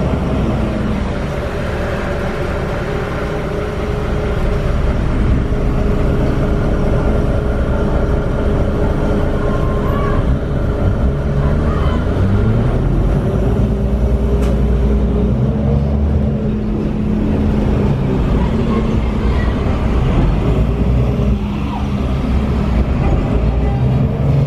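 Heuliez GX 317 city bus heard from inside the cabin: its Iveco Cursor 8 (F2B) diesel engine running under way through the ZF automatic gearbox. The engine note rises about halfway through as the bus picks up speed, holds, then drops away and climbs again near the end.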